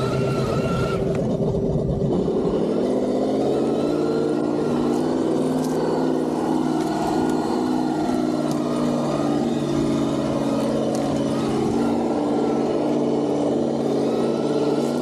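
Sense ESS Dual engine sound simulator on an Axial SCX6 RC crawler, playing a synthesized engine sound through its speaker. The note rises in pitch in the first second, then about two seconds in settles into a steady low engine note that wavers slightly with the throttle.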